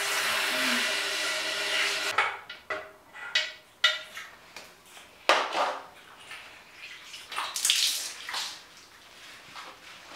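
Water spraying from a handheld shower head as a steady hiss that stops about two seconds in, followed by irregular splashes and wet rubbing as a cat is washed on a tiled floor.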